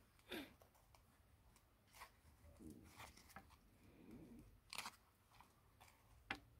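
Faint, irregular crackles and clicks of adhesive tape giving way as a thin spatula pries the back cover off a smartphone, with a few sharper snaps.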